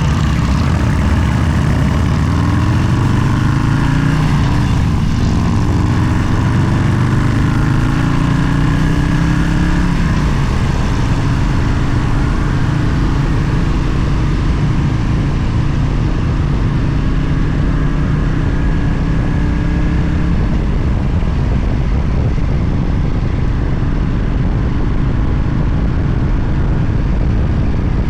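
Motorcycle engine running under way, over a steady roar of wind. Its pitch rises several times in the first ten seconds as it accelerates, then holds steadier.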